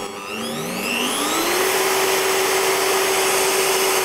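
Bosch PBD 40 bench drill's motor running in first gear. Its whine rises in pitch over the first second and a half as the speed dial is turned up from 200 rpm, then holds steady at top speed, well over 800 rpm.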